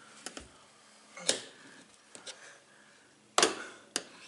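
Scattered sharp clicks and knocks, about half a dozen, from the rear glass being worked into its rubber weatherstrip in a pickup cab. The two loudest come about a second in and near the end.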